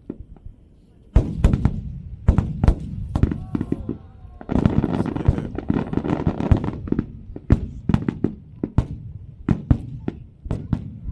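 Fireworks shells bursting in quick succession, sharp booms starting about a second in, with a dense crackling barrage in the middle.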